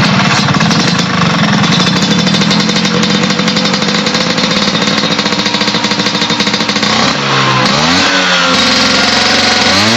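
Vespa scooter's small single-cylinder engine running with a fast, even putter. About seven seconds in, it is revved up and down.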